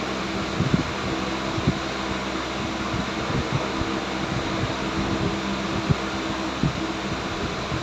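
Steady mechanical hum like a fan running, with a few faint knocks.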